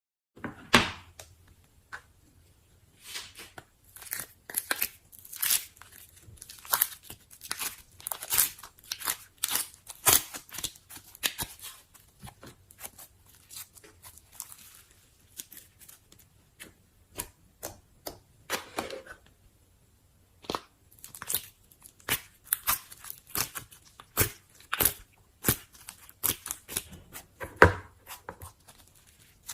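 Slime being poked and stretched by hand, giving irregular sticky clicks, pops and crackles, with a brief pause about twenty seconds in.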